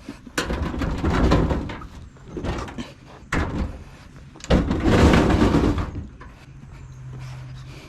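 Double-drawer dishwasher being handled: a run of sliding, scraping and rattling with sharp knocks, loudest about four and a half to six seconds in. A low steady hum follows near the end.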